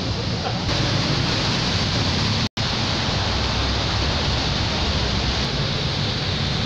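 Steady roar of city road traffic heard from above, an even hiss with no single vehicle standing out. The sound cuts out for an instant about two and a half seconds in.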